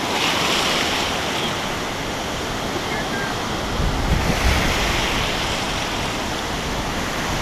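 Ocean surf washing and foaming around the shallows, a steady rushing noise, with wind on the microphone adding a low rumble about four seconds in.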